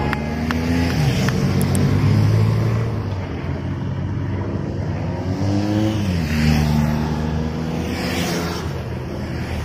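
Race-convoy motor vehicles driving past one after another. The engine note drops in pitch as each goes by, once about a second in and again about six seconds in.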